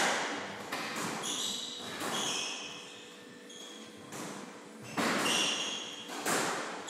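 Squash rally: the ball cracking off racket strings and court walls, a sharp hit at the start and two more about five and six seconds in, with short high squeaks of court shoes on the wooden floor in between.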